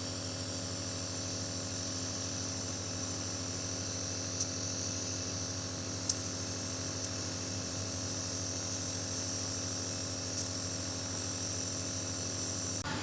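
Compressor nebulizer running: a steady electric motor hum with a hiss of air above it and a few light clicks.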